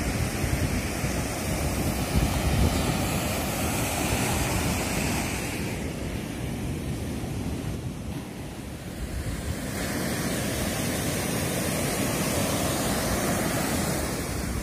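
Ocean surf breaking and washing up a sand beach, a steady rushing noise mixed with wind buffeting the microphone. The hiss thins for a few seconds in the middle, then returns.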